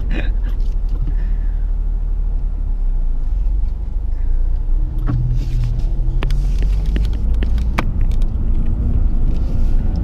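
Cabin noise of a Nissan 370Z being driven: a steady low rumble from its V6 engine and the road. A few short knocks sound in the second half as the loose camera is handled.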